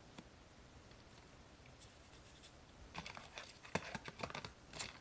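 White paper card pack being handled on a wooden desk: light rustling and several sharp taps and paper scrapes starting about three seconds in, after a quiet start.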